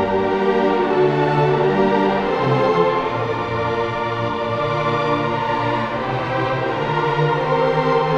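High school symphony orchestra playing slow, sustained chords over a bass line that changes note every second or so.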